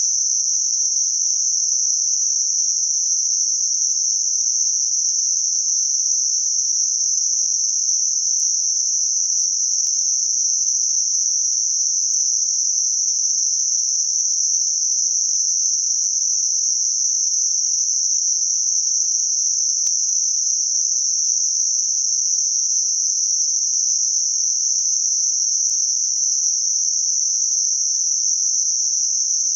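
Generated narrow-band noise with a bell-curve filter, centred near 6 kHz: a steady, even, high-pitched hiss with nothing lower in it, made for masking high-frequency tinnitus.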